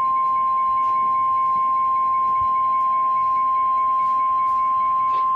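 NOAA Weather Radio warning alarm tone: a steady, high-pitched 1050 Hz beep held at one pitch and level, the signal that a warning bulletin follows.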